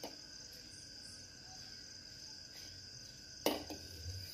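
Steel spoon stirring milk tea in a steel pot, with one sharp clink of the spoon against the pot about three and a half seconds in. A steady high-pitched whine runs underneath.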